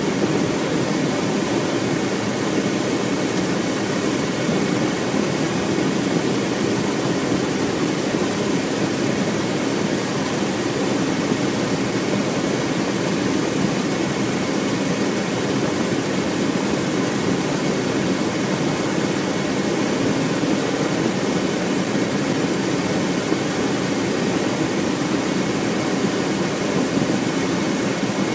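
Steady engine and road noise inside the cab of a military vehicle as it drives, with a faint steady high whine.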